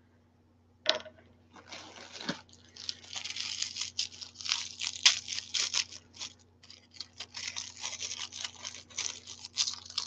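Wrapping being crinkled and torn open by hand to get at a small jewelry item. It starts with a single click about a second in, then runs as a dense string of crackles.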